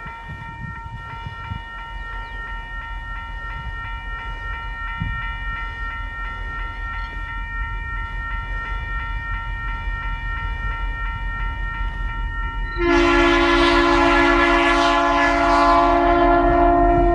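Tasrail diesel locomotives 2054 and 2051 running light engine toward a level crossing over the steady ringing of the crossing bells, their engine rumble growing louder as they approach. About 13 seconds in, the lead locomotive's horn sounds in one long, loud blast.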